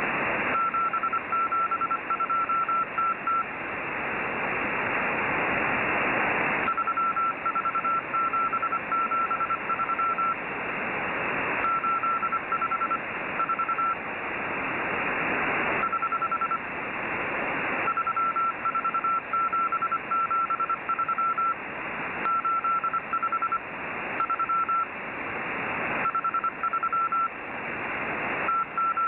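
Morse code received on a radio: a single high tone keyed in quick dots and dashes, in groups separated by pauses of a second or two. Underneath is a band of static hiss that swells whenever the keying stops.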